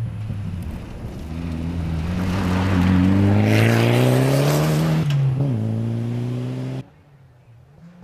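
Mitsubishi Galant VR4 rally car's turbocharged four-cylinder engine climbing in pitch under hard acceleration on gravel, growing loud with a rush of gravel and tyre noise. About five seconds in, the engine note drops sharply and then runs steady. The sound cuts off near the end, leaving only a faint distant engine.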